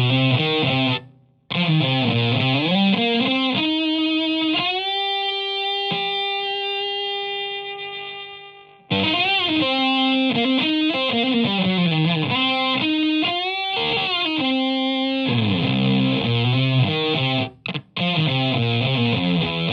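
Fuzzed electric guitar, a Stratocaster through a Zonk Machine fuzz pedal and an Ampeg VT22 valve amp, playing distorted riffs with bends and slides. It cuts off sharply about a second in, and midway one long sustained note rings and slowly dies away before the riffing starts again.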